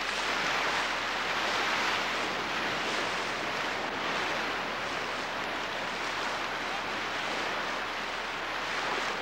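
Steady rushing of ocean waves and wind, with no clear rhythm, over a faint steady low hum.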